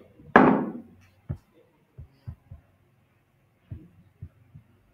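One loud burst of noise just after the start, then about seven soft, dull knocks scattered through the rest.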